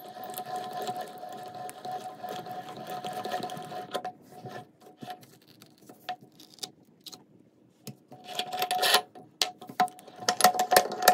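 Hand-cranked meat grinder turning steadily as it squeezes jelly worm candy through the plate, with a held whine from the metal mechanism; the cranking stops about four seconds in. After a quiet stretch come scattered metal clicks and knocks as the grinder head and its retaining ring are handled.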